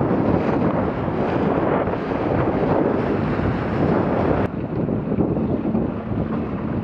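Wind buffeting the microphone over water rushing past the hull of an E-scow sailboat moving fast. The noise drops abruptly to a slightly lower, duller level about four and a half seconds in.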